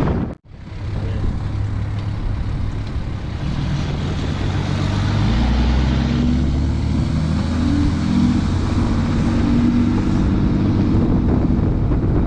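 Deleted Cummins diesel in a 2010 Ram with a 4-inch straight-pipe exhaust, running under way. After a brief cut about half a second in, the engine note rises in pitch over a few seconds as the truck accelerates, then holds steady.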